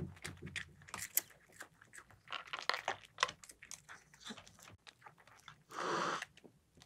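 Scattered small clicks and crunches, then an adult cat hissing once at a kitten, a breathy burst of about half a second near the end.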